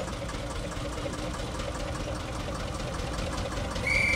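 Narrow-gauge industrial diesel locomotive engine running at low speed with a steady chugging beat as it approaches. Near the end a single high, steady toot starts.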